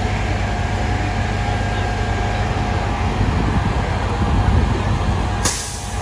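Steady street noise of idling fire apparatus and traffic, with a low rumble of high wind buffeting the microphone. About five and a half seconds in comes a short, sharp hiss.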